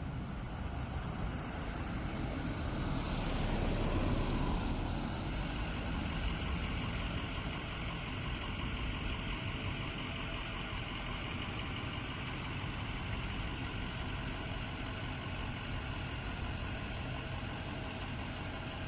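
Backhoe's diesel engine running steadily, swelling louder for a couple of seconds near the start, then settling into a steady rumble with a high whine above it.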